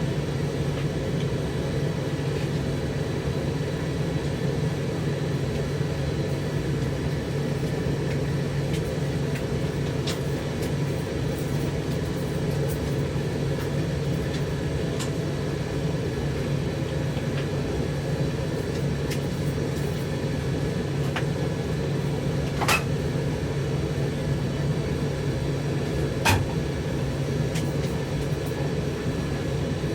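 Zanussi TD162 compact tumble dryer, a White Knight build, running steadily mid-cycle with its motor and drum giving an even hum and rumble. Two sharp clicks stand out, a few seconds apart, near the end.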